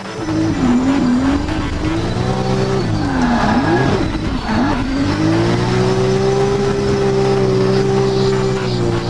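Drift car's engine heard from inside the cabin, its pitch swinging up and down with several sharp dips in the first half as the throttle is worked, then held steady at high revs for the second half.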